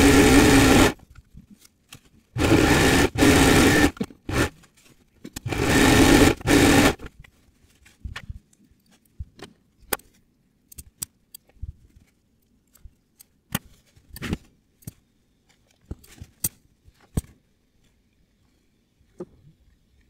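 Sped-up sounds of work on a coat: three loud runs of machine-like noise in the first seven seconds, then scattered sharp clicks and taps.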